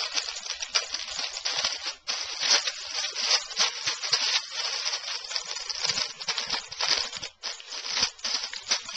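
A crinkly bag crackling and rustling rapidly and continuously as a baby's feet stamp on it. There are brief pauses about two seconds in and again at about seven and a half seconds.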